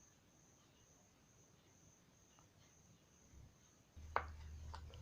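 Near silence: quiet room tone with a faint steady high-pitched whine. About four seconds in, a low hum comes in, followed by a single light click.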